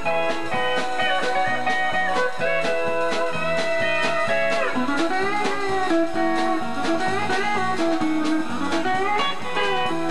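Two pedal steel guitars playing a country blues together over a steady beat, with notes sliding up and down under the steel bar.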